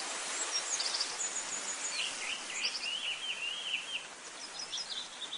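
Outdoor background hiss with small birds chirping: a quick run of short chirps about halfway through, and thin, higher calls near the end.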